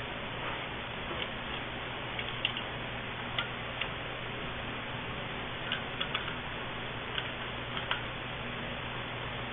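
Light, irregular clicks and ticks, about nine of them, over a steady low hum.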